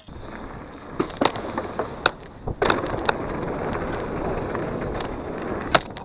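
Downhill mountain bike riding fast over a dirt trail: a steady rush of tyres on dirt with several sharp clacks and rattles from the bike over bumps, the loudest near the end.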